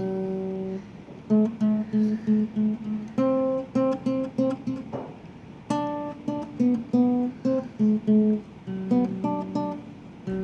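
Acoustic guitar playing a short riff of single picked notes, in repeated phrases of several quick notes separated by brief gaps.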